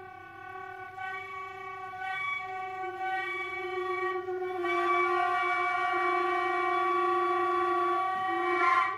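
Two concert flutes hold one long, low note together in a steady crescendo, turning breathy as it grows loud. The note cuts off suddenly near the end.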